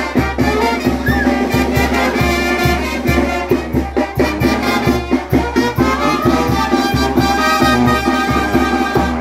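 A live brass band playing lively dance music, trumpet carrying the melody over a steady, even beat.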